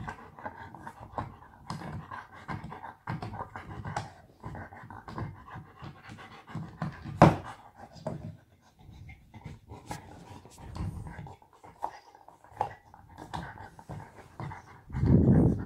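German Shepherd puppy gnawing a raw marrow bone: irregular crunching and scraping of teeth on bone, with panting breaths. One sharp crack about seven seconds in, and a short loud rustle just before the end.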